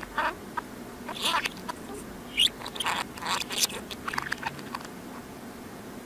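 Budgerigar chattering, played in reverse: a quick run of short warbles, chirps and clicks that trails off about five seconds in.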